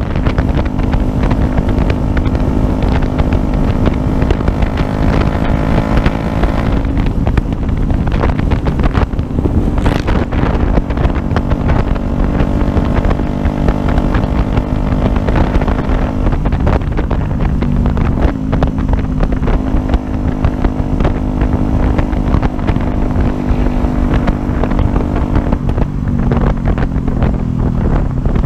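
Yamaha YZF-R125's 125 cc single-cylinder four-stroke engine running under way at a steady cruise, its note shifting a few times and falling near the end as the bike slows, with wind noise on the microphone.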